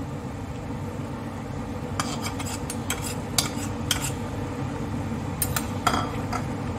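A metal spoon scraping cashew paste out of a bowl into a stainless steel pan of chicken, with a string of sharp clinks against the bowl and pan from about two seconds in, over a steady low background noise.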